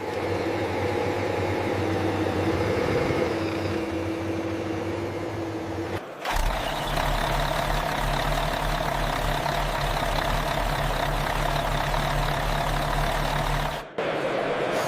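Engine idling sound from RC scale model vehicles, steady and low. It changes abruptly about six seconds in and again near the end, where one vehicle's engine sound gives way to another's.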